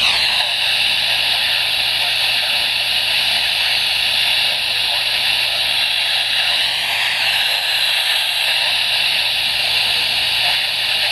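Steady hiss of radio static from a weather-radio receiver with no broadcast coming through.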